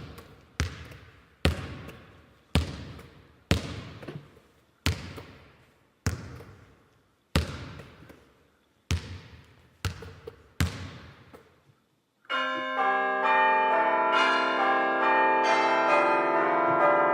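A run of about ten separate hard knocks, roughly one a second, each dying away. About twelve seconds in, a dense peal of many ringing bells starts and continues.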